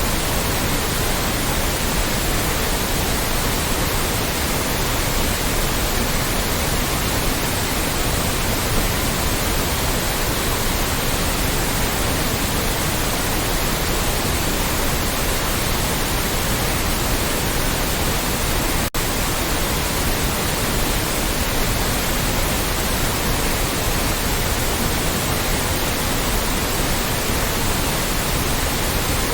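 Loud, steady white noise, an even hiss spread across all pitches, with one momentary dropout about two-thirds of the way through.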